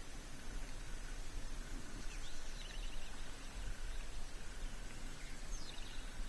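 Outdoor ambience with a steady hiss and low rumble, and a bird giving a quick series of short chirps twice, about two and a half seconds in and again near the end.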